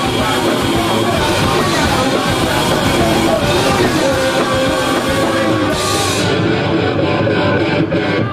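A rock band playing live, with guitars and a drum kit, recorded on a deteriorating videotape. The top end dulls about six seconds in.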